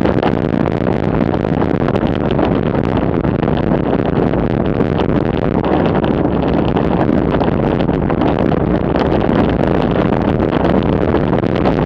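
Steady rush of wind on the microphone of a camera mounted on a bicycle coasting down an asphalt road at about 35 to 45 km/h.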